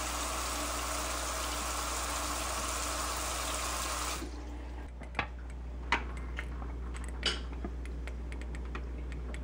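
Water from a kitchen faucet's pull-down sprayer running into the sink, shut off abruptly about four seconds in. After that, a few short gurgles and pops from the reverse osmosis system as it pressurizes.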